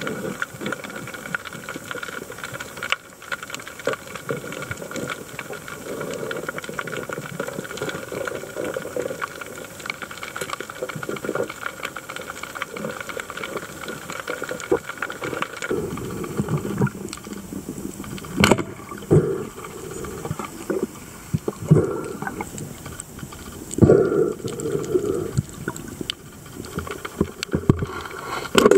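Underwater ambience heard through the camera: a dense crackle of small clicks over a water hiss, with a faint steady hum through the first half. From about halfway on come several louder knocks and thuds.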